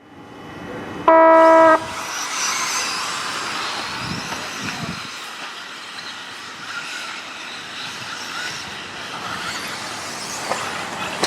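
A loud electronic start tone about a second in, held steady for under a second, then the high whine and hiss of electric 1/10-scale 2WD stock RC buggies running on the dirt track after the start.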